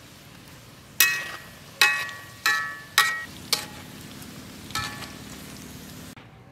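Metal tongs clinking against a wire-mesh skimmer and a steel wok, about six sharp ringing strikes, over the steady sizzle of deep-frying oil.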